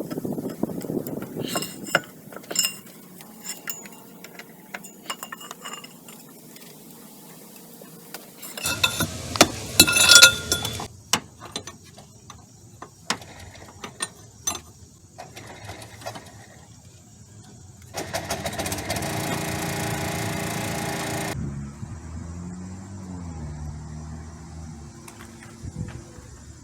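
Hand tools clinking and knocking against metal while wrenches work a seized power steering line fitting, with a cluster of louder clanks about ten seconds in. Later a steady mechanical buzz lasts a few seconds, followed by a fainter low hum that wavers in pitch.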